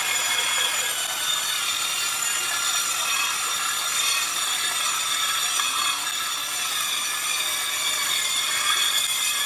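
Cordless drill spinning a wire cup brush against a rusty steel bearing housing, the wire bristles scrubbing off the rust in a steady, unbroken grinding hiss over the drill's motor whine.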